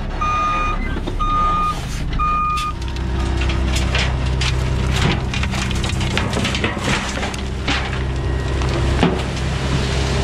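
Heavy truck's reverse alarm beeping about once a second, stopping about two and a half seconds in. A diesel engine then runs steadily and loudly under the crunch and clatter of dirt and rock being handled.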